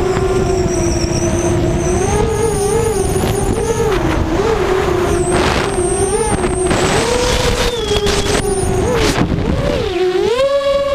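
FPV racing quadcopter's four brushless motors (Cobra 2208 2000kv on 4S) whining in flight, the pitch wavering up and down with the throttle and rising sharply near the end.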